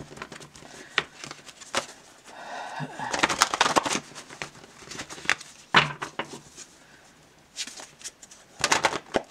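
Stiff paper envelopes and cards handled on a wooden tabletop: irregular rustling and sliding with a few sharp taps, busiest about three to four seconds in.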